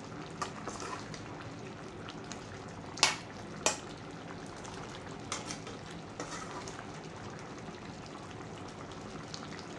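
Thick kaldereta stew of chicken livers, gizzards, potatoes and carrots simmering in a metal pan while a metal spoon stirs through it. Two sharp clacks of the spoon against the pan about three seconds in are the loudest sounds, with lighter scrapes and taps here and there.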